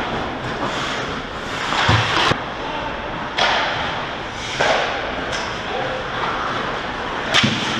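Ice hockey game play in a rink: a steady scrape and hiss of skate blades on the ice, broken by sharp cracks and knocks of sticks and puck, five or so of them, the loudest near the end.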